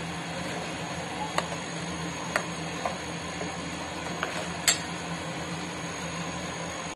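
Steel ladle stirring thick bisibelebath in a pot, clinking sharply against the pot several times, over a steady low hum.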